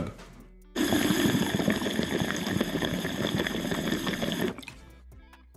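Water chugging and bubbling through a Mothership Glass Exosphere rig as air is drawn through it on a dry pull. It is a rough, steady gurgle that starts about a second in and stops sharply nearly four seconds later.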